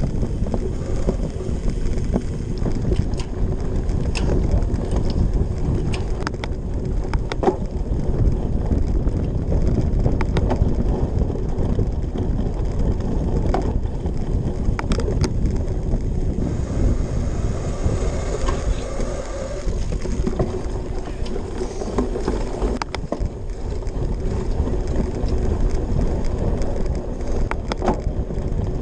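Wind rushing over the microphone of a cyclocross bike ridden fast over grass, with the knobby tyres rumbling and the bike rattling and knocking now and then over bumps.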